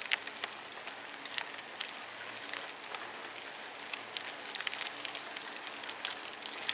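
Bicycle rolling along a trail: steady tyre noise with many scattered small clicks and crackles.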